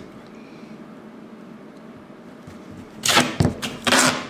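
Duct tape being pulled off the roll in two quick, loud rips about three seconds in.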